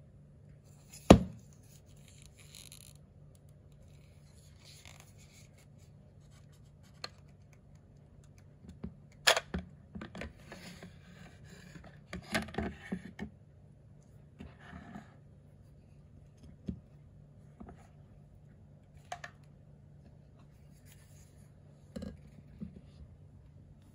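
Hinderer Fieldtac fixed-blade knife being handled in its Kydex sheath: sharp plastic clicks and snaps with short sliding scrapes as the blade is drawn from the sheath. The loudest click comes about a second in, and a flurry of clicks and scrapes falls near the middle.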